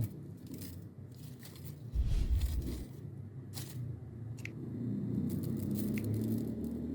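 Dry tinder of grass, leaves and fatwood shavings rustling and crackling as it is handled and packed together, with a low dull thump about two seconds in.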